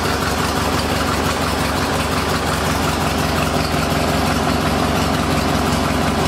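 Craftsman GT garden tractor engine running at a steady idle.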